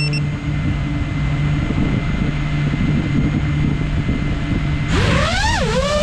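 FPV racing drone's brushless motors spinning at idle after arming, a steady hum. About five seconds in they are throttled up for take-off: the motor whine rises sharply, dips and climbs again.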